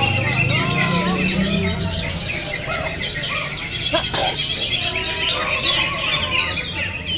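Greater green leafbird (cucak ijo) singing among a dense chorus of other caged songbirds: a busy, overlapping run of chirps, whistles and rising and falling notes. A low hum sits beneath the song for the first two seconds or so.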